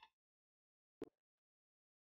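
Near silence broken by one short, sharp knock about a second in: a kitchen knife tapping the cutting board while slicing butternut squash. A brief noise fades out right at the start.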